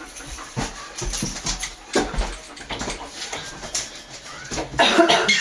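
African grey parrot making short, soft squeaks and clicks, with a louder pitched call about five seconds in.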